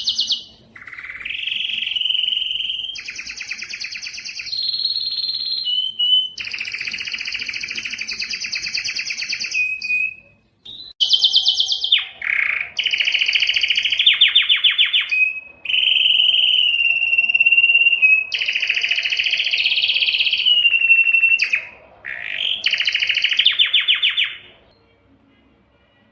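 Spanish timbrado canary singing a long song of rapid rolling trills and held whistled notes, phrase after phrase with short breaks. The song stops about 24 seconds in.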